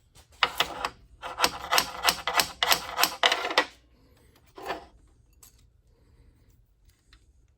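Steel parts and tools being handled on a metal fixture: a run of rapid metallic clicks and scrapes lasting about three seconds, then one short scrape about a second later.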